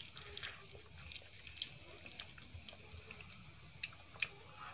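Fingers mixing rice into dal on a steel plate: soft wet squishes and scattered light clicks, with two sharper clicks near the end.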